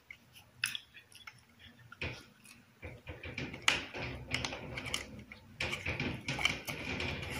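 A person eating chicken by hand close to the microphone: chewing and mouth smacks with scattered short clicks, growing denser and busier from about three seconds in.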